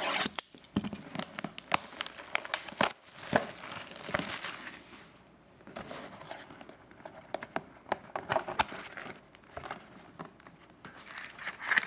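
A trading-card box being torn open: its wrapping and cardboard crinkle and crackle, with many sharp irregular clicks and a short lull about halfway through.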